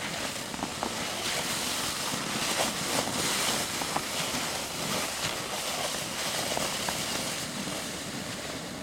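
Plastic sled being pulled over snow: a steady hissing scrape with a few faint scattered clicks.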